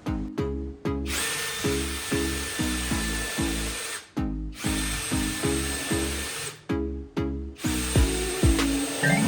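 An electric power tool's motor runs in three bursts, each starting and cutting off abruptly, with a steady high whine. Rhythmic background music plays underneath.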